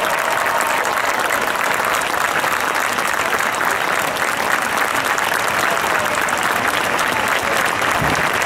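Stadium crowd applauding steadily, a dense wash of clapping with scattered voices.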